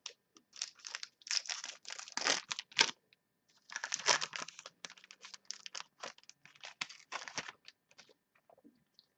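Foil trading-card pack wrapper crinkling and tearing as a pack is opened, with cards being handled: irregular crackling rustles in two bursts, settling near the end.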